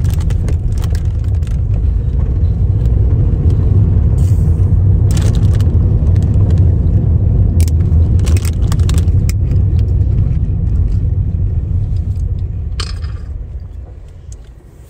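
Steady low road rumble inside a moving car's cabin, dying down over the last few seconds. Short clicks and crackles of a plastic drink bottle being handled and its cap twisted are scattered on top.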